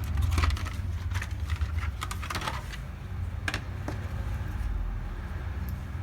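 Scattered light clicks and taps of a small SSD and its packaging being handled on a workbench, over a steady low hum.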